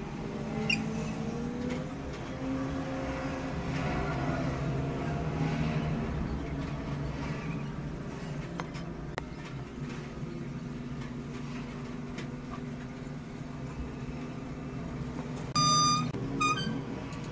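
A motor vehicle's engine runs steadily in the background, rising in pitch about a second in. Near the end there are two short, loud, high-pitched beeps, the first longer than the second.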